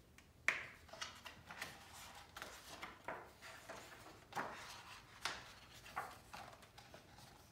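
Paper pages of a hardcover picture book being handled and turned by hand: a string of faint, short rustles and swishes, the sharpest about half a second in.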